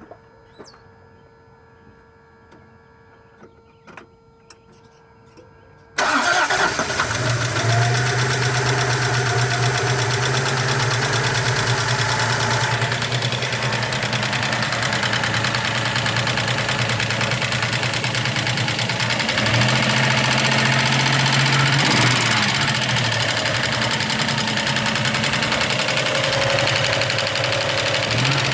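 Toyota 3.0 V6 (3VZ-E) engine of a 1993 4Runner starting about six seconds in, after a few faint clicks, and then idling steadily. It carries the ticking that the owner is asking about, wondering whether it means a valve lash adjustment or a bad motor.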